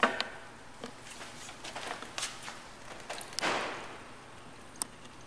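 Scattered taps, clicks and knocks, the loudest a sharp knock at the very start, with a short rustling hiss about three and a half seconds in.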